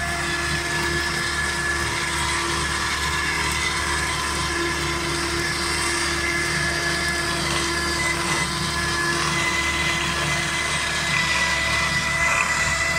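Lovol H754 tractor running steadily while driving a rear-mounted mower: an even machine drone with a few steady high tones on top.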